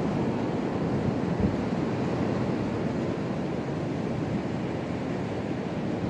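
Strong gusty wind, about 30–45 mph with higher gusts, rushing through bare trees in a steady deep rush with small swells, like a constant freight train.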